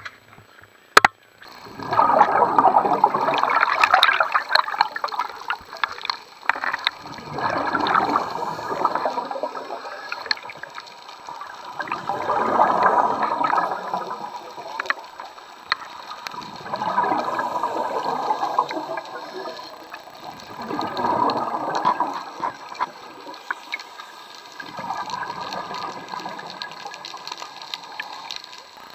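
Scuba diver's exhaled air bubbling out of the regulator underwater: six gurgling bursts of two or three seconds each, about every four seconds, with one sharp knock about a second in.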